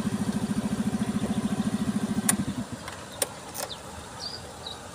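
A small motorcycle engine idles with an even beat, about ten times a second, and stops abruptly about two and a half seconds in. A few sharp clicks follow, then faint bird chirps near the end.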